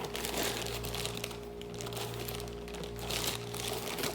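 Plastic packaging crinkling and rustling in irregular bursts as a tightly packed tripod is worked out of its packet, over a steady low tone.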